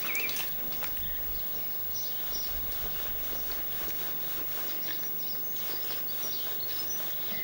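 Outdoor ambience with birds chirping now and then, and faint taps and scrapes of a kitchen knife scoring the tough skin around veal shanks against a wooden cutting board.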